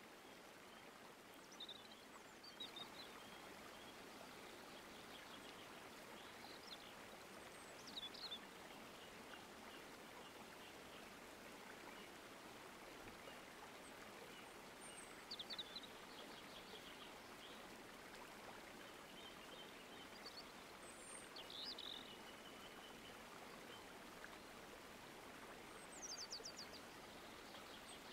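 Faint outdoor ambience: a steady hiss with small birds giving short high chirps and trills every few seconds.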